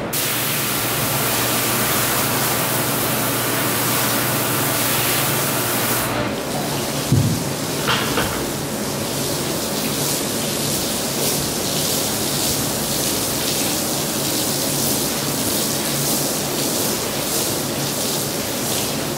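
Water pouring and splashing onto a soapy wool rug as it is rinsed, a steady rushing hiss over a low machine hum.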